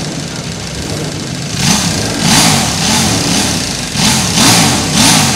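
A CBR 200 motorcycle engine idling, then blipped hard over and over from about a second and a half in: quick revs that rise and drop back, roughly one or two a second, each with a loud exhaust rasp.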